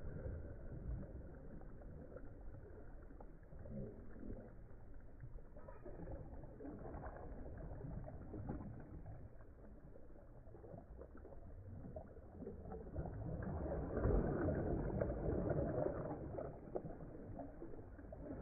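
Wind rushing over the microphone with small river waves lapping, swelling louder for a few seconds toward the end.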